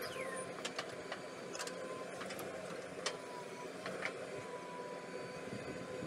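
JCB backhoe loader's diesel engine running steadily as the backhoe arm digs, with a faint steady whine and scattered clicks and knocks.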